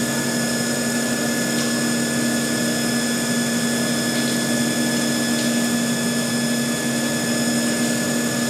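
Haas Mini Mill CNC machining a steel block under flood coolant: the spindle and cutter run steadily, a constant hum with several fixed tones over the hiss of coolant and cutting.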